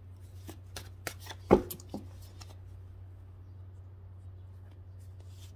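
A stack of paper index cards being handled and flipped: a run of light taps and paper clicks over the first two and a half seconds, with one louder thump about a second and a half in, then quiet. A steady low hum runs underneath.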